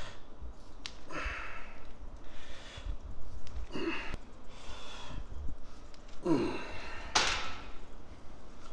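A man breathing hard from the effort of heavy cable triceps press-downs: a series of forceful exhales and inhales, with a short falling groan about six seconds in.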